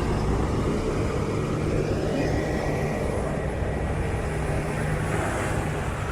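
Large diesel vehicle engine idling steadily, a low even hum with a constant pitch.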